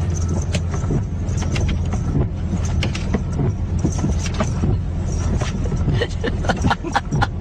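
Inside a moving car: a steady low rumble of engine and road noise, with scattered light clicks and taps that come thicker near the end.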